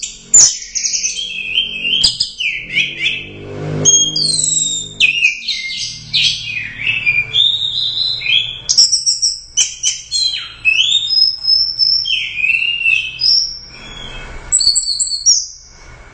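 Orange-headed thrush (anis merah) singing a long, varied song of rapid whistled phrases, slurred notes and chattering trills almost without a break, falling silent just before the end.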